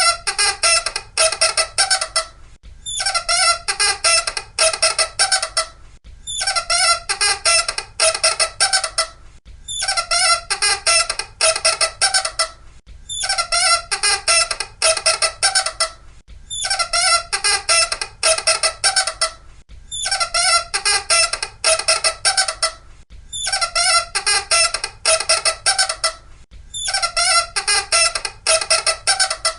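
Loud, high squeaking that comes in bursts of about two and a half seconds. Each burst is a rapid chatter of squeaks, repeated about every three and a half seconds with short pauses between.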